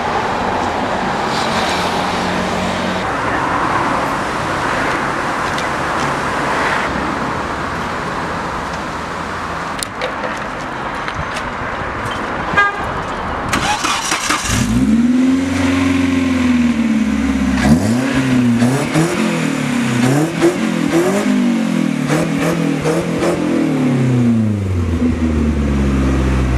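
An off-road race truck's engine revs up and down again and again, starting about halfway through, over a background of outdoor street noise.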